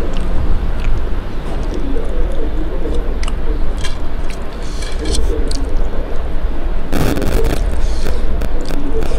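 Eating by hand: fingers squish and mix rice with curry gravy on a steel plate while the mouth chews, with many small clicks and scrapes. A brief louder burst of noise comes about seven seconds in, over a steady low hum.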